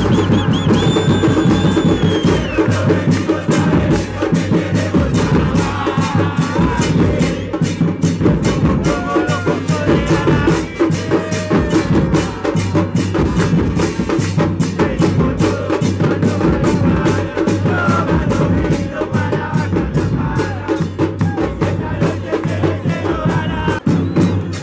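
Football fan band's bass drums (bombos) beaten in a fast, steady rhythm, with a crowd of fans chanting along.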